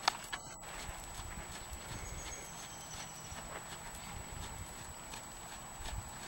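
Horse's hoofbeats on a sand arena at a trot, an even rhythm of soft thuds, with a single sharp click just at the start.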